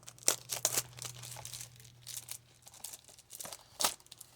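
Wrapping on a trading-card box being torn and crinkled by hand: irregular crackles, with one sharp snap a little before the end.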